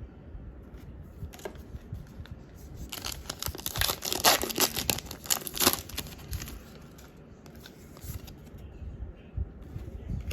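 Foil Pokémon booster pack wrapper being torn open and crinkled: a dense crackling tear lasting about three seconds in the middle, with quieter light handling noises before and after.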